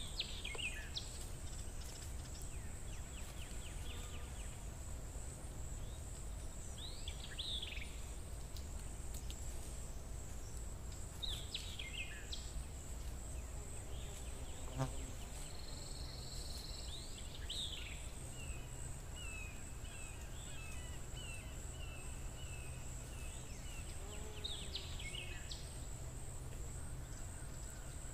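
Outdoor ambience: a steady low rumble and hiss under a continuous high-pitched whine, with a bird giving short falling chirps about five times. A single light knock about halfway through.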